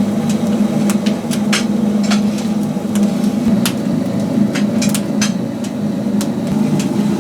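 Oak firewood crackling in a wood-fired chicken roaster, with irregular sharp pops and snaps over a steady low machine hum.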